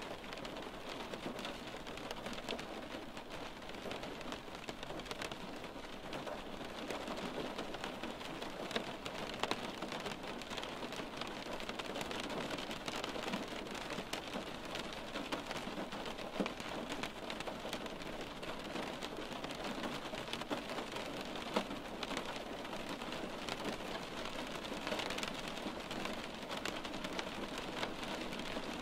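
Steady rain falling on a window pane: an even hiss of many drops, with a few louder single drop taps now and then.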